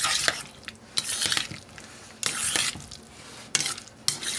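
Boiled potato chunks being tossed through a mayonnaise dressing in a mixing bowl: several separate scrapes and squishes of the utensil against the bowl, roughly one a second.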